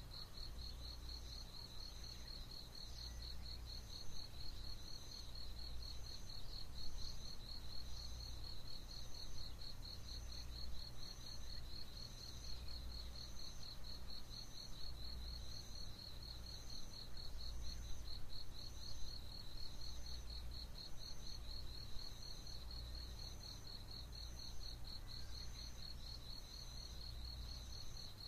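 Insects calling in a continuous high trill with a fast, even pulse. A second, higher chirp repeats about once a second over it, with a low rumble underneath.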